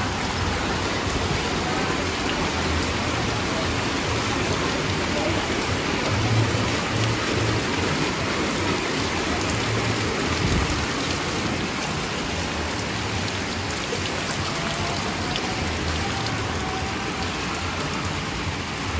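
Heavy rain falling steadily, the drops pattering on flooded street water.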